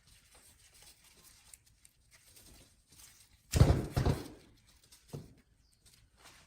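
Faint small clicks and handling noises, broken by one loud thump and clatter about three and a half seconds in and a smaller knock about a second later.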